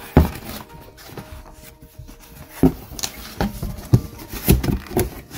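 Knocks and bumps from a cardboard box and its styrofoam packing being handled: one sharp thump just after the start, then a run of irregular bumps through the second half.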